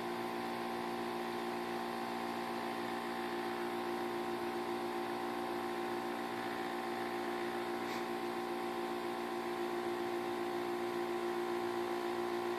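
Laser-fitted 3D printer running a slow laser-cutting pass: a steady, even machine hum with several fixed whining tones from its motors and cooling fan.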